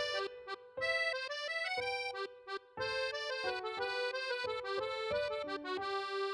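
Huawei P40 lite E phone ringtone: an instrumental melody of held chords in short phrases with brief breaks, stopping at the end.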